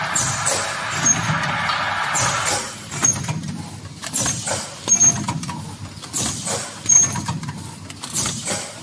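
Spouted-pouch filling and capping machine running, with a low mechanical rumble and a rhythmic clatter. A short, high squeak comes with each machine cycle, about every two seconds. A steady hiss runs through the first two or three seconds and then drops away.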